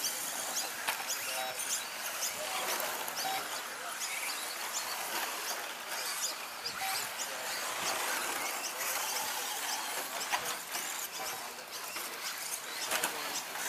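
Radio-controlled 2WD short-course trucks racing over a dirt track: a steady hiss of tyres on loose dirt, with many small high ticks and occasional brief faint whines.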